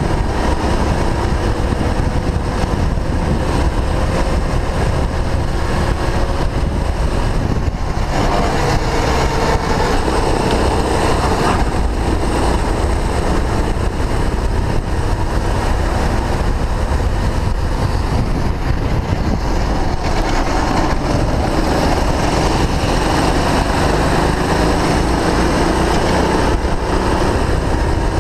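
Sodi rental go-kart's engine running at speed, its pitch dropping and then climbing again several times as the throttle is lifted and reapplied through the corners, over a heavy rumble of wind on the onboard camera's microphone.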